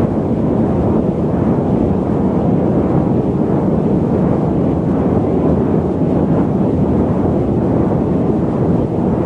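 Airliner cabin noise in cruise: a steady, deep rushing roar of airflow and engines with no distinct tones or events.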